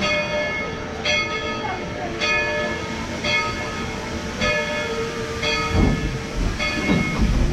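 Steam locomotive's bell ringing steadily, about one strike a second, as the train gets ready to depart. Two brief low rumbles come near the end.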